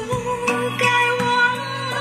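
Recorded music playing through a tube hi-fi amplifier and a pair of loudspeakers: a melody of held, gently bending notes over a steady accompaniment.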